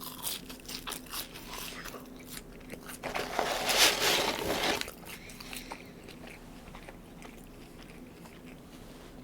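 A person biting into and chewing fast food close to the microphone. Crisp, clicky crunches come first, the loudest crunching falls about three to five seconds in, and quieter chewing follows.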